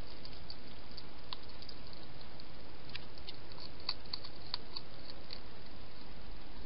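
European hedgehog feeding at a shallow bowl, making small irregular clicks and smacks with its mouth, thickest about three to five seconds in, over a steady hiss.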